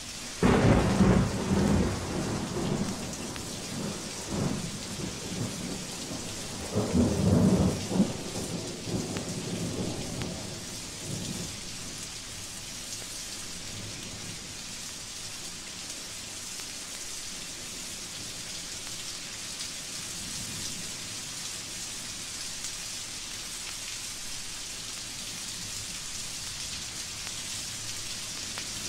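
Thunderstorm field recording played from a 1956 vinyl record: rain hisses steadily throughout. A sudden loud thunderclap about half a second in rumbles on for a few seconds, and a second loud peal around seven seconds in rolls away by about eleven seconds.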